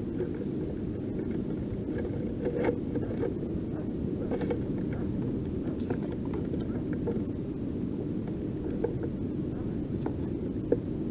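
A steady low rumble of wind buffeting a kayak-mounted camera's microphone over the sea, with a few light knocks and clicks from the fish and gear being handled on the kayak.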